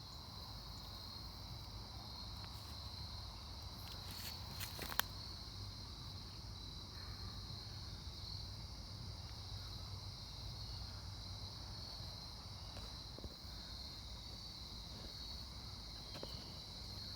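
Faint outdoor chorus of insects, a steady high-pitched trill, with a couple of short clicks about five seconds in.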